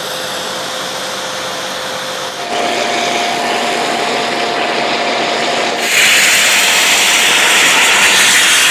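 Shakti S3 electric pressure washer running, a steady motor whine under the hiss of the water spray, in three short clips joined by cuts. The whine rises in pitch at the first cut, about two and a half seconds in. About six seconds in the spray turns louder and harsher as the jet blasts into a cardboard box.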